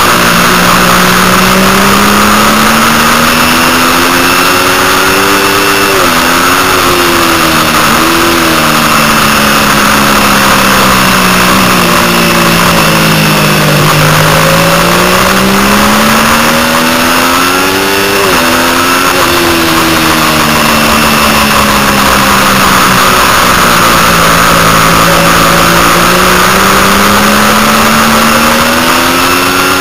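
Triumph Daytona 675's inline three-cylinder engine heard onboard at racing speed over steady wind rush. The revs climb and fall with the corners, with quick gear changes about six, eight and eighteen seconds in.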